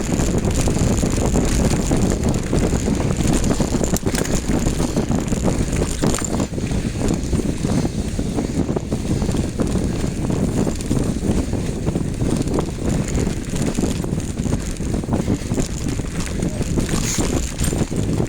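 Wind buffeting the microphone over the steady rumble of a mountain bike riding uphill on rough dirt trail, with irregular small knocks from the tyres and frame.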